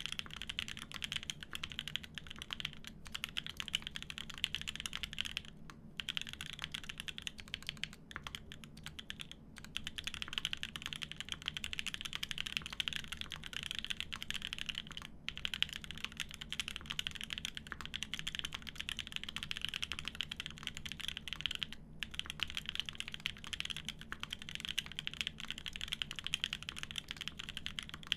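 Fast, continuous typing on a Semo TKL mechanical keyboard with lubed Konpeitou switches on an aluminium plate and GMK keycaps: a dense stream of keystrokes with short pauses every few seconds.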